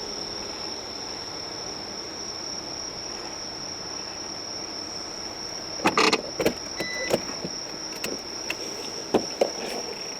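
Steady high-pitched chirring of insects over a low car rumble. From about six seconds in, a series of sharp clicks and knocks, the loudest cluster first.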